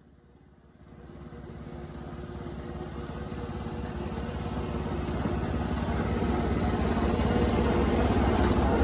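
Firewood processor's engine running steadily. It comes up faintly about a second in and grows steadily louder.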